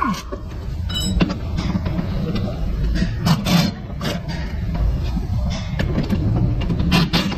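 Steady workshop rumble with several short clicks and knocks of gloved hands and metal parts being handled at a car's rear brake caliper.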